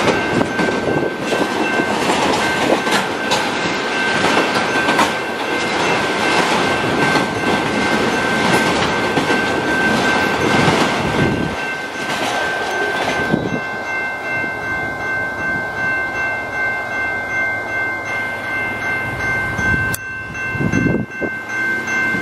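Canadian Pacific freight train's autorack cars rumbling and clattering over a level crossing while the crossing's warning bell rings steadily. The train noise falls away about 13 seconds in as the last car clears, leaving the crossing bell ringing on its own.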